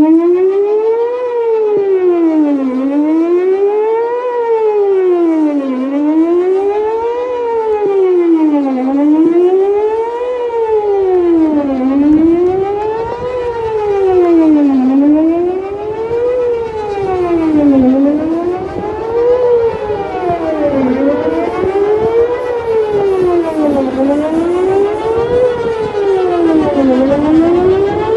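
Whelen WPS 4008 electronic outdoor warning siren starting suddenly and sounding a wail, its pitch rising and falling about every three seconds. Its rotator is broken and does not turn, so the level stays fairly steady instead of swelling and fading as it would with the horn sweeping around.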